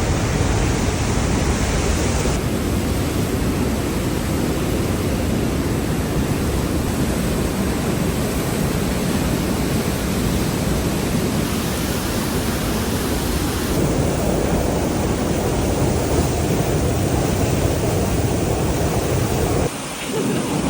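Loud, steady roar of a big waterfall close by: a dense rush of falling water with no pauses, its tone shifting a couple of times and dipping briefly near the end.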